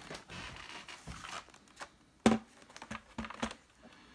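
Small clicks and knocks of hands working on a laptop's plastic case and a screwdriver, with one sharp knock a little past halfway and a few lighter taps after it.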